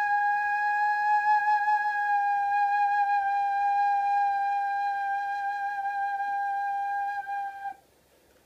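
Japanese iwabue stone flute, a natural stone with a hole bored by shellfish, blown in one long, steady whistling note that stops suddenly near the end.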